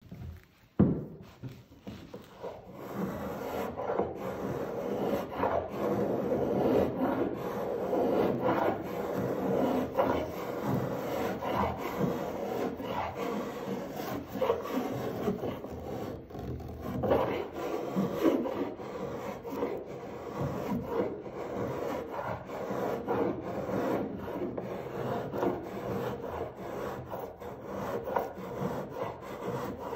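A Spokescraper's blade scraping English ash with the grain, in repeated short strokes that lift fine curled shavings. A single sharp knock about a second in comes before the scraping starts.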